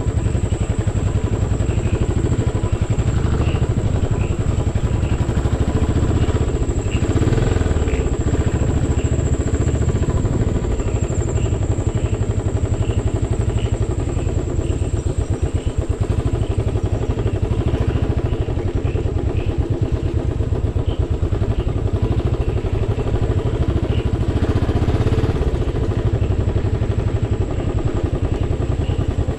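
Royal Enfield motorcycle running steadily while being ridden.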